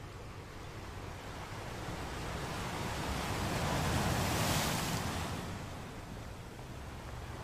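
Sea wash and wind noise on the microphone over open water: a steady low rumble under a hissing rush of water and wind that swells to its loudest about four seconds in, then fades.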